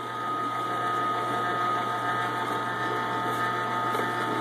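Omega J8006 horizontal single-auger masticating juicer running with a steady motor hum and whine while its auger crushes vegetables fed down the chute.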